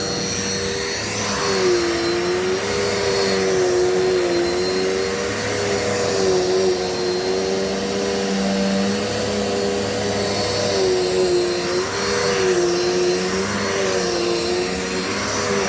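Dirt Devil Multi-Surface vacuum cleaner running steadily on a kitchen floor. Its motor hum dips briefly in pitch every so often.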